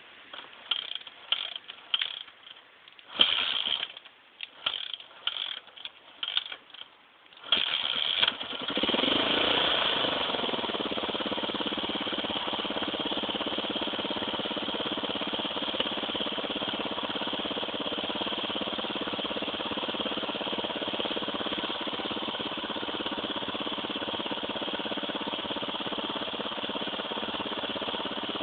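Enduro dirt bike's engine being started on a slope: several short, failed bursts, then it catches about eight seconds in and idles steadily.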